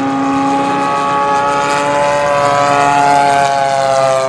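Radio-controlled model airplane's engine running flat out as the plane flies by, a steady high buzz that sinks slightly in pitch in the second half as it passes.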